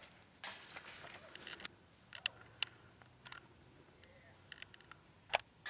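Disc golf basket chains jingling as a thrown disc strikes them about half a second in, ringing and fading over about a second. A steady high buzz of insects runs underneath, with a few sharp clicks, one loud near the end.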